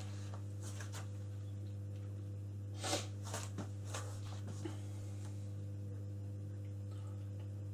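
Steady low electrical hum, with a few light mechanical clicks about three to four and a half seconds in, as the load is applied on a Rockwell hardness tester.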